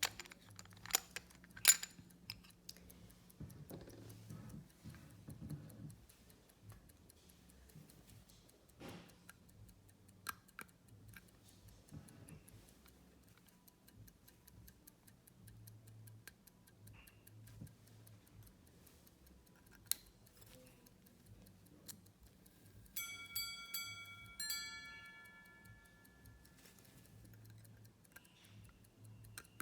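Swiss quarter-repeater pocket watch ticking faintly, with a few handling clicks. About 23 seconds in, the repeater strikes a quick run of gong chimes that ring out briefly.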